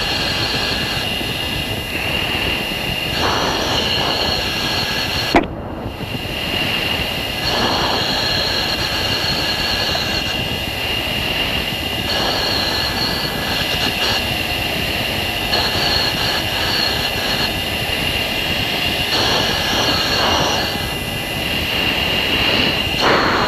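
F-16 cockpit noise in flight: a steady rush of engine and cockpit air with high-pitched whines. Every few seconds comes a short hiss of the pilot breathing through the oxygen mask. A sharp click with a brief dropout about five seconds in.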